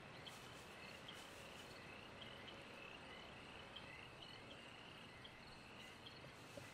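Faint crickets chirping, short high chirps about twice a second over a quiet background hiss: near-silent night ambience.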